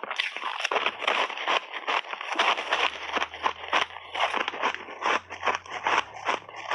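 Close-up chewing of frozen mixed-berry ice balls: rapid, continuous crunching with many sharp cracks a second as the ice breaks between the teeth.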